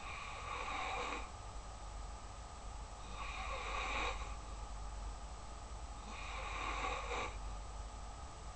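Snoring in a slow, even rhythm: three snores about three seconds apart, each lasting about a second.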